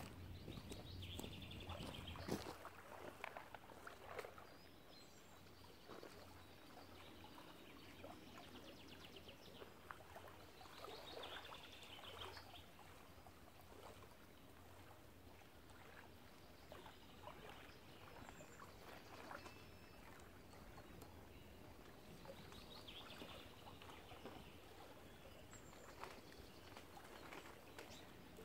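Faint lakeshore ambience: small waves lapping at the bank, with a low, steady wind rumble.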